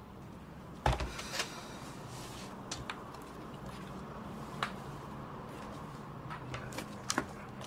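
Quiet room hum with handling noises: a single thump about a second in, then scattered light taps and clicks.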